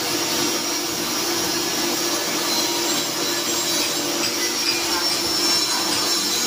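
A large pillar drill press running with a steady hum, its bit being fed down into a workpiece clamped by hand on the table.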